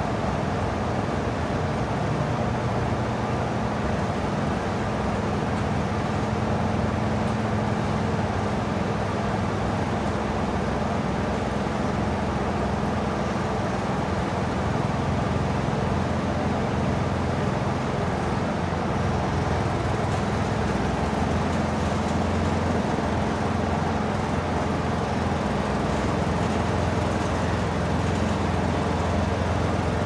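Steady machinery hum in a dairy barn: one or more motors running without pause, with a low, even drone that holds its pitch.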